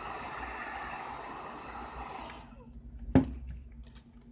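An electric heat gun blows a steady rush of air to soften the digitizer adhesive, then stops about two and a half seconds in. A sharp knock comes about three seconds in, followed by a few light clicks of tools on the iPad.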